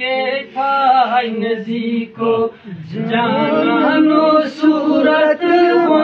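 A man chanting Khowar poetry in a melodic, sung recitation, holding long notes that waver and bend in pitch, with short breaks for breath.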